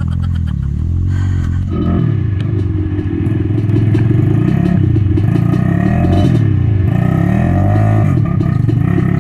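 Dirt bike engine running. It is low and steady at first, then from about two seconds in its revs rise and fall again and again as it is throttled along a muddy trail.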